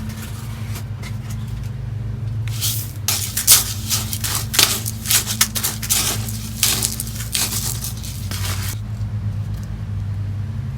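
Gritty potting soil mixed for drainage being scooped and stirred, making a run of scraping, crackling rustles for about six seconds, starting a couple of seconds in. A steady low hum runs underneath.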